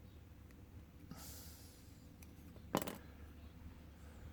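Quiet handling of small padlock parts at the bench: a short breathy hiss about a second in, then one sharp click, the loudest sound, a little before three seconds in.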